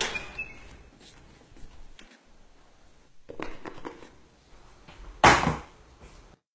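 Sparse sound-effect track for a short indoor scene: soft knocks and rustles, then a single brief, loud rush of noise about five seconds in, followed by a short dead silence.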